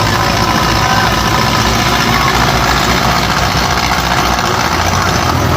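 Belarus tractor's diesel engine running steadily.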